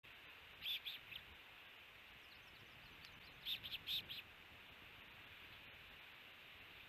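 Ospreys at the nest giving short, high chirps in two quick clusters, about a second in and again around four seconds in, over a steady faint hiss.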